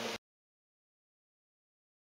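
Silence: the sound track drops out completely just after the start, following a moment of faint steady hum.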